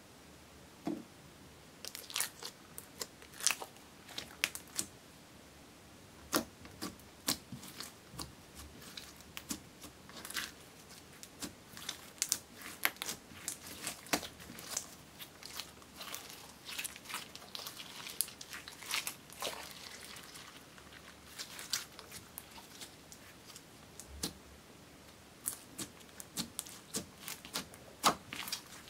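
Several yellow slimes, one of them clear with glitter, being kneaded, stretched and folded together by hand, making irregular sticky clicks, pops and crackles.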